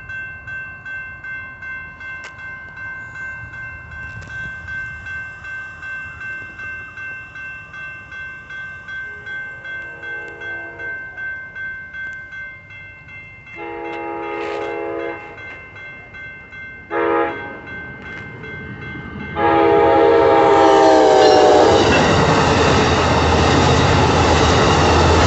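Railroad crossing bell ringing about twice a second, then an Amtrak California passenger train's horn sounding four blasts, long, long, short, long: the grade-crossing signal. The last blast runs into the loud noise and clickety-clack of the double-deck passenger cars rolling past.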